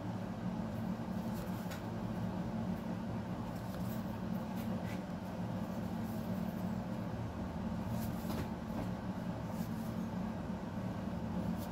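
Steady low hum in the room, with faint scattered ticks and swishes of trading cards being slid one at a time from the front of a hand-held stack to the back.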